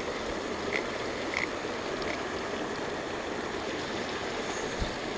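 Creek water rushing and splashing steadily as it pours through gaps in the rocks of a low-water bridge.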